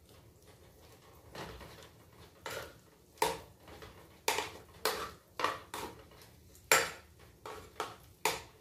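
Metal ladle clinking against a stainless steel cooking pot as the soup is stirred: about a dozen sharp, irregular clinks with a short ring.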